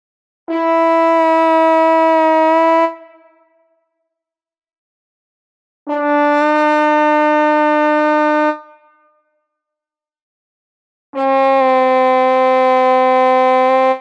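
French horn playing three long held notes, each a little lower than the last, with gaps of silence between them.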